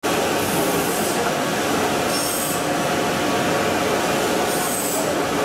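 A 400x1200 two-roll rubber calender running: its electric motor and gearbox drive give a steady mechanical running noise with a few held tones. Three short hisses come about half a second, two seconds and four and a half seconds in.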